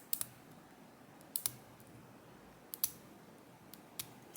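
Small sharp metallic clicks from handling a disassembled ASSA Guideline lock cylinder and its parts, several in close pairs about every second and a half.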